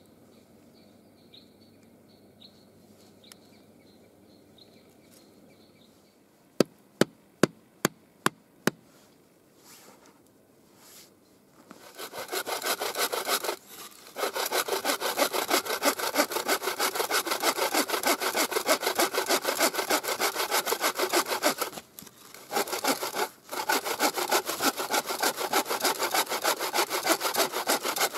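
Wooden-framed bow saw cutting through a thin log resting on a stump: fast, even back-and-forth strokes that start about halfway in and go on with a few brief pauses. Before the sawing, a quick run of about six sharp knocks.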